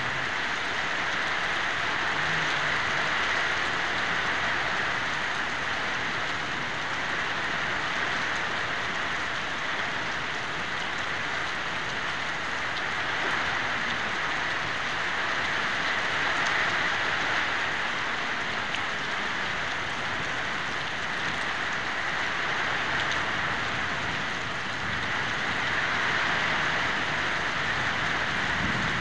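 Rain falling steadily, an even hiss that holds without a break.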